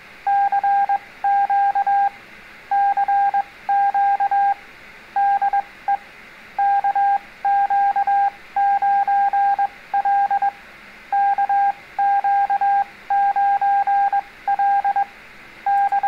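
Morse code (CW) tone of about 750 Hz, keyed in dots and dashes over a light hiss, sending a general CQ call: "CQ CQ CQ DE KQ9L KQ9L KQ9L K".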